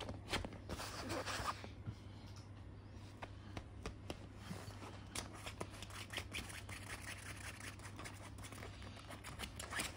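A kitten scrabbling on a bedsheet and batting at a plastic cable tie: fabric rustling, with many small scratches and clicks from claws and the tie.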